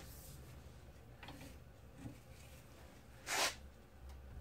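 A wrench and a steel pipe used as a cheater bar are handled on a rear strut bolt. There are faint metal clicks, then one short metal-on-metal scraping rasp about three seconds in as the pipe is worked over the wrench handle.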